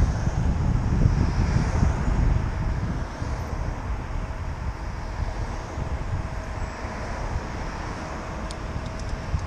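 Wind rumbling on the microphone of a camera on a moving bicycle, over city road traffic, a little louder in the first few seconds.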